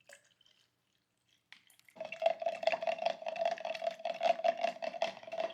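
Spoon stirring a pre-workout and creatine drink, a quick, steady swishing and scraping of the spoon around the container with a ringing tone, starting about two seconds in after a few faint clicks.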